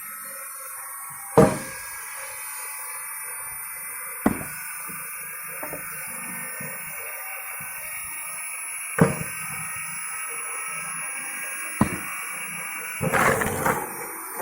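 Heavy splitting maul striking a log: four single blows a few seconds apart, the first the loudest, then a quicker run of knocks near the end. The blows are not splitting the log.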